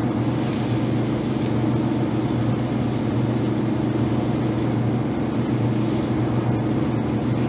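Steady low hum of laboratory ventilation, a constant drone that does not change.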